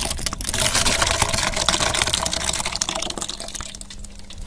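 Mashed watermelon juice and pulp pouring out of a hollowed watermelon and splashing into a large aluminium pot. The stream thins to a trickle of drips near the end.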